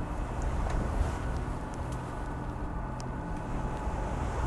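Steady low rumble of wind and the boat's engine running under way, with a faint even hum and a few faint ticks from the canvas sail cover being handled.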